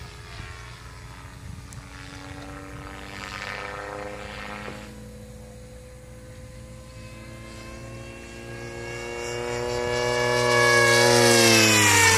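Radio-controlled model airplane flying by, the steady whine of its motor and propeller. The whine grows louder over the last few seconds, then drops sharply in pitch as the plane passes near the end.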